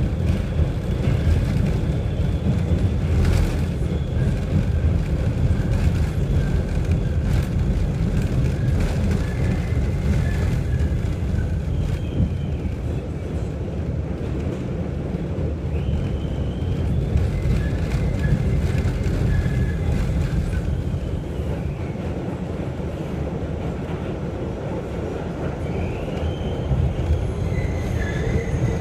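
New York City subway train heard from inside the car while running: a steady low rumble of wheels on track, with thin high squealing tones that come and go and a few sharp clicks.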